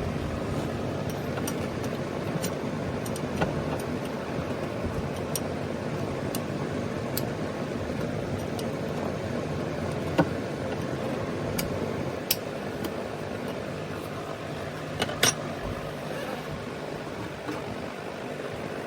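Steady mechanical whirring with scattered light clicks and taps; a sharp click about ten seconds in and a quick double tap about fifteen seconds in are the loudest.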